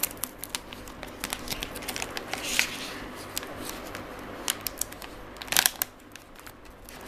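Plastic packaging pouch crinkling and crackling as hands fold and open it, with many small sharp crackles. There are louder rustles about two and a half seconds in and again around five and a half seconds.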